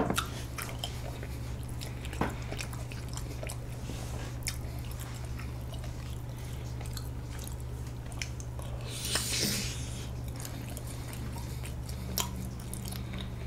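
A glass set down on a wooden table with a sharp knock right at the start, then faint mouth and chewing clicks over a steady low hum, with a brief hiss about nine seconds in.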